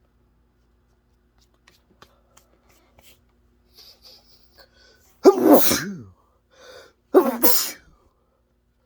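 A person sneezing twice, loudly, about two seconds apart in the second half, after a few seconds of near quiet.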